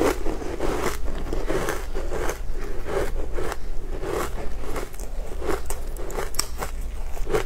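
Close-up chewing of crunchy food, a steady rhythm of about two chews a second with sharp crackling crunches.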